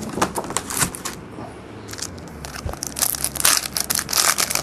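Trading-card pack wrappers being torn open and crinkled: a fast, irregular run of crackles, busiest in the second half.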